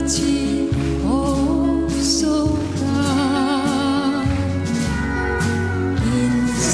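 Folk song music: a melody line with vibrato over steady bass and accompaniment, with no lyrics sung.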